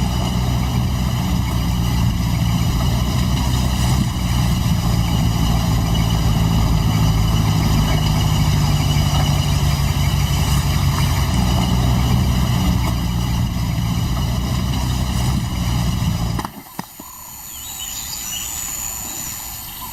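A vehicle engine running steadily at idle, a low even hum that cuts off suddenly about sixteen seconds in, leaving a fainter background.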